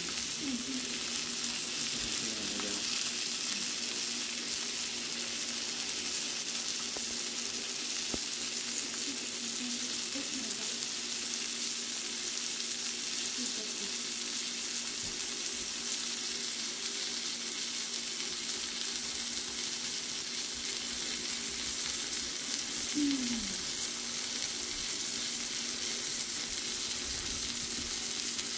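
King mackerel steak pan-frying in butter and garlic in a nonstick skillet: a steady sizzle of the hot butter around the fish.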